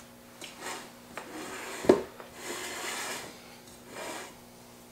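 Handling noises at a kitchen counter: rubbing and rustling, with one sharp knock about two seconds in.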